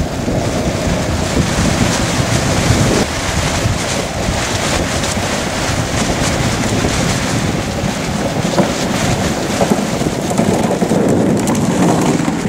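Steady wind noise buffeting the microphone as an iceboat sails over lake ice, with the hiss of its runners on the ice underneath. The sound changes abruptly about three seconds in.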